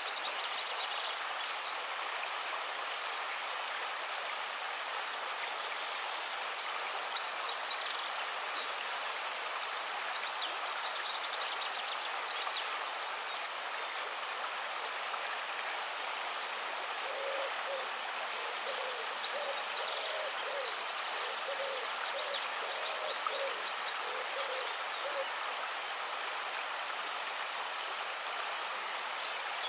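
Steady rush of river water, with scattered high, quick chirping calls throughout. About halfway through, a run of about ten low, hoot-like notes repeats evenly for several seconds.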